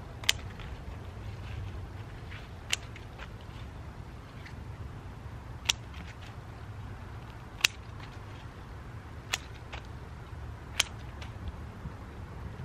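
Scissors snipping through soft coleus stems: six sharp snips about two seconds apart, with a few fainter clicks of the blades between.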